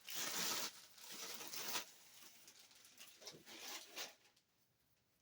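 Plastic sleeve rustling and crinkling as it is pulled off a rifle, in two spells of handling, the second ending about four seconds in.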